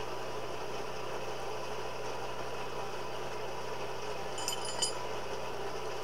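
Coal forge's air blower running with a steady hum. About four and a half seconds in, two light ringing metallic clinks, half a second apart.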